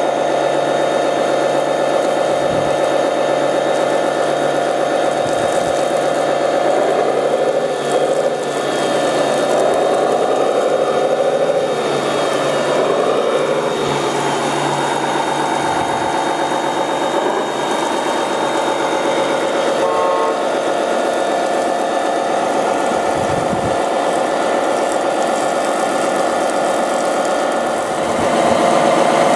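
Radio-controlled model fire trucks running with a steady engine-like hum. For several seconds in the middle a whine rises and falls in pitch. About two-thirds of the way through there is one short horn-like beep.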